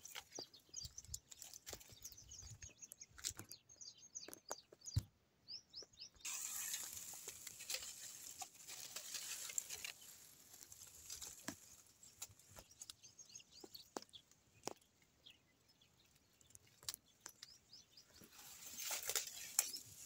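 Dry fallen leaves and twigs rustling and crackling as they are brushed and handled, with scattered sharp clicks. Small birds chirp in quick, short, high notes through the first several seconds.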